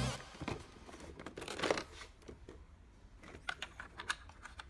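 Faint handling of a toy gel blaster rifle in its plastic-lined box: a soft rustle of plastic packaging, then a scatter of small light clicks in the last second and a half.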